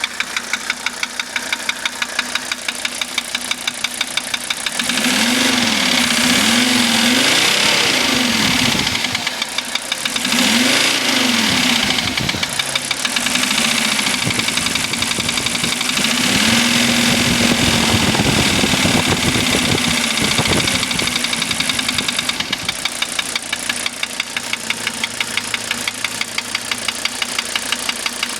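1985 Mercedes 300D five-cylinder diesel engine running with a steady, regular knock at idle. From about five seconds in it is revved up and down several times, then drops back to idle with the knock still there. The owner has not yet traced the cause of the knock.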